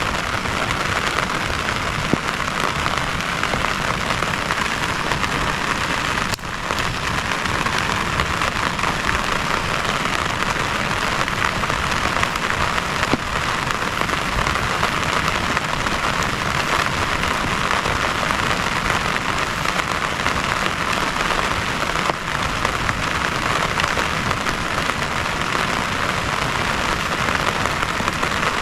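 Heavy rain falling steadily, a dense even hiss of drops on surfaces, briefly dipping about six seconds in.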